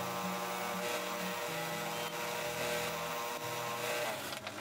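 Background music of sustained low notes that change pitch in steps, over a steady hum; it stops about four seconds in.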